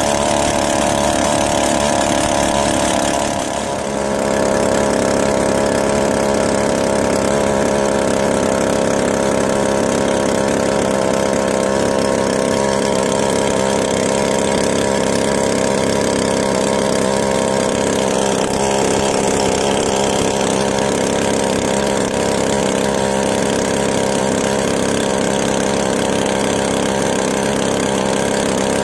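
Small boat's engine running steadily as the fiberglass skiff moves along, with a brief dip in level about four seconds in.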